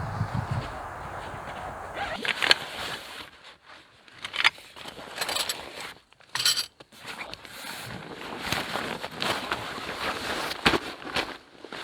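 Footsteps and rustling with irregular clicks and knocks as camping gear is handled, after a steady hiss in the first two seconds.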